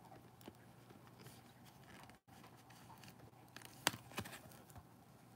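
Faint handling of a clear plastic trading-card top-loader and soft card sleeve by nitrile-gloved fingers: light rustles and ticks, with two sharper plastic clicks close together about four seconds in, over a low steady hum.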